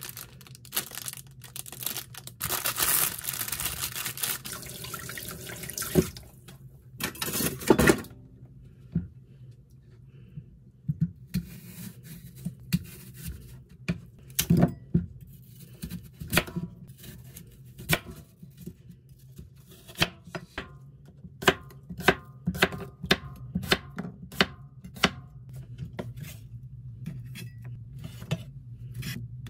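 Plastic bag crinkling and rustling for the first several seconds as apples are taken out. Then a kitchen knife cuts through an apple and chops it on a wooden cutting board, with many sharp knocks that come faster and more regularly in the second half.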